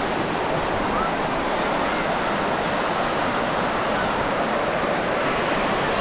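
Ocean surf on a sandy beach: a steady, even rush of breaking waves.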